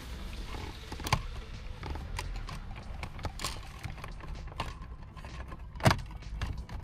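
Scattered clicks and knocks of car interior parts and hand tools being handled during reassembly, with a sharper knock about a second in and a louder one near the end.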